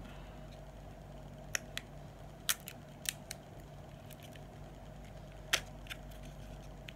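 Scattered sharp clicks and small snaps of liquid lipstick packaging being opened by hand, the loudest about five and a half seconds in, over a faint steady hum.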